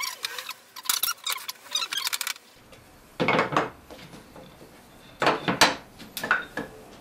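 Wooden chair parts being handled and pulled apart on a workbench: a run of sharp, high squeaky clicks for the first two seconds or so, then three short wooden knocks as pieces are set down, the last two close together near the end.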